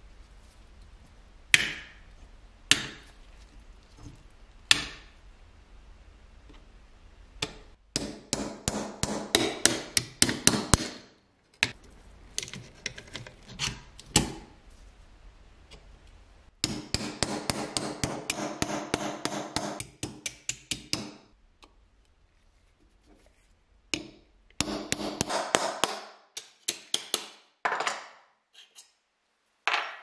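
Small hammer striking a pin punch to drive rivets out of a rusty metal pistol spark-lighter frame. A few single blows come first, then several runs of quick, light taps broken by short pauses.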